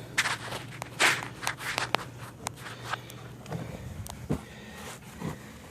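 Footsteps and scuffing on the dirt of a tunnel dug under a slab foundation, with irregular crunches and small knocks. A faint low steady hum runs underneath and fades out a little past halfway.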